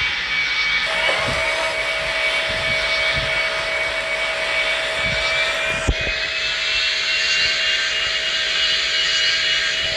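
Boeing 757 jet engines running with a steady hiss and a high, steady whine whose pitch steps up slightly about six seconds in, with a lower hum joining about a second in. One short knock about six seconds in.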